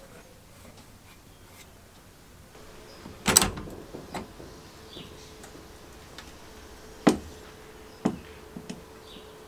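Metal door latch of a sandblasting cabinet being worked and the cabinet door opened: a few sharp metal clacks, the loudest about a third of the way in, then two more sharp knocks as a steel vice part is brought to the cabinet.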